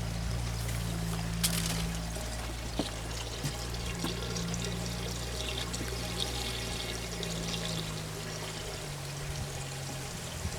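Spring water pouring and trickling steadily into a pool.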